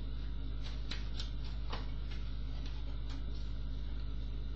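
Light clicks and ticks of tarot cards being handled as a card is drawn and laid on the spread, a few scattered clicks in the first three seconds, over a steady low hum.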